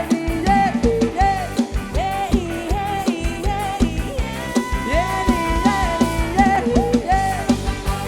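Loud live band music from a Thai rot hae sound-truck band: a steady drum beat and bass under a sliding, bending melodic lead line.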